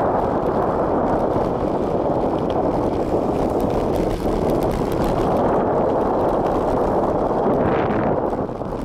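Wind rushing loudly over the microphone of a bicycle descending a mountain road at speed, a steady roar of noise that eases slightly near the end.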